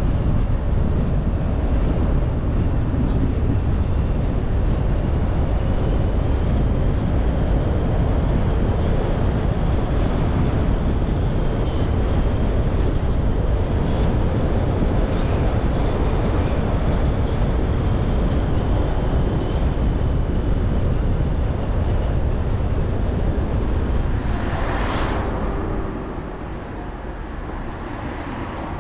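Steady road and wind noise of a car driving, a dense low rumble. Near the end a brief whoosh rises and fades, and the noise then gets a little quieter.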